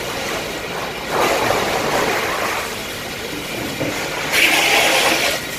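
Steady rushing and hissing of a house fire being doused with water, with two louder hissing surges, one about a second in and a brighter one near the end.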